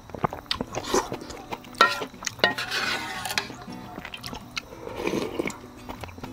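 Someone eating ramyeon noodles: short clicks of utensils against a bowl and a stretch of slurping about two and a half seconds in, over background music.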